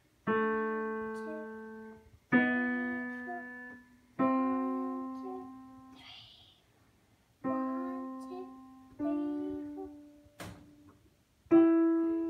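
A child playing a digital piano slowly: six short phrases of held notes, each struck and left to ring and fade away, with a pause in the middle.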